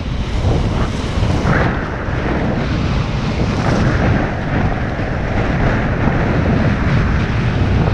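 Wind buffeting the microphone of a camera aboard a fast-sailing Hobie 16 catamaran, a loud, uneven rumble over the rush and hiss of water past the hulls.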